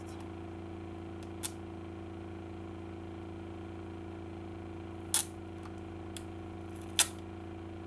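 A sticker being picked and peeled off a plastic CD case with fingernails: three short, sharp scratchy clicks, about a second and a half in, around five seconds, and the loudest near the end, over a steady low hum.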